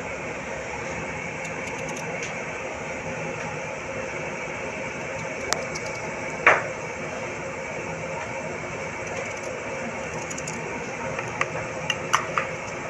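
A few sharp clicks and taps from raw potatoes being sliced by hand with a kitchen knife over a tray, the loudest about six and a half seconds in and a small cluster near the end, over a steady background hum.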